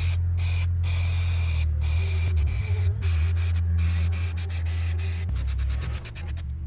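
Stone-crushing plant machinery running: a steady low drone under a loud hiss, with a quick run of clicks near the end.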